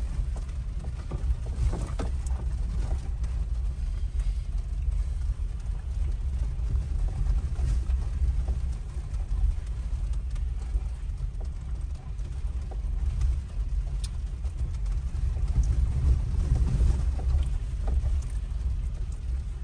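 A vehicle driving slowly over a rough dirt road, heard from inside the cabin: a steady low rumble with scattered small knocks and rattles.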